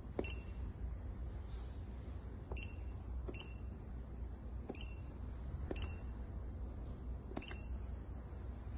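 Konnwei KW720 battery tester's keypad being pressed: six short clicks a second or so apart, some with a brief beep. A longer, higher beep of under a second sounds near the end.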